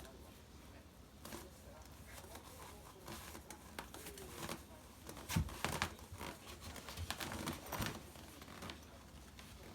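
Standard poodle gnawing and chewing on something, a run of irregular clicks and scrapes, busiest a little past halfway and again near three-quarters of the way through.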